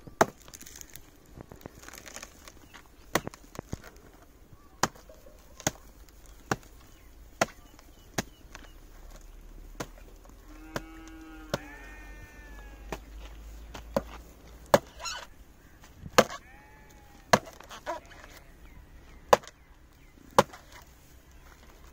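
Hand axe chopping at the dry frond bases on a palm trunk: about twenty sharp, separate knocks at an irregular pace. A farm animal calls out twice, once midway and again about two thirds of the way in.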